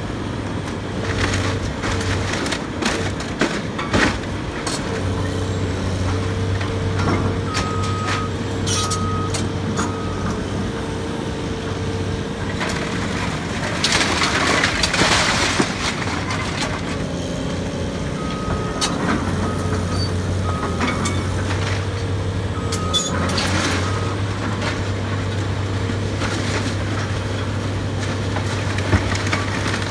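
Excavator's diesel engine running steadily while it tears down a building, with scattered cracks and knocks of breaking debris and a louder crash about halfway through. Two runs of short high beeps sound over it.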